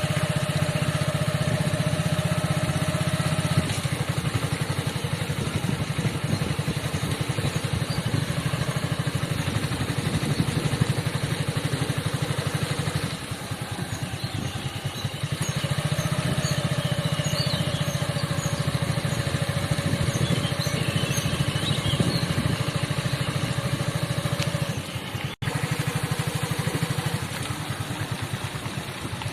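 Vehicle engine running steadily while driving, heard from on board, with a brief break in the sound about 25 seconds in.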